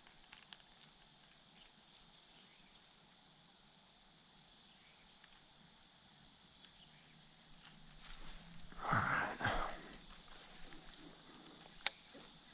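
Steady high-pitched chorus of insects buzzing. A short burst of noise comes about nine seconds in, and a single sharp click near the end.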